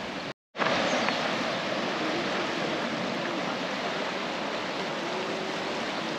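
Steady rushing noise of ocean surf. It breaks off completely for a moment about half a second in, then comes back a little louder.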